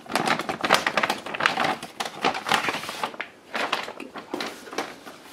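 Clear plastic bag crinkling and rustling in irregular bursts as a router is slid out of it.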